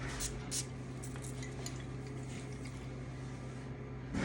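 Light clicks and clinks of a glass perfume bottle and its cap being handled, mostly in the first second, over a steady low hum.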